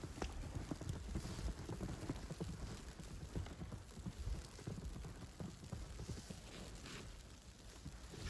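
Footsteps crunching in fresh snow, about one sharp step a second, with wind buffeting the microphone.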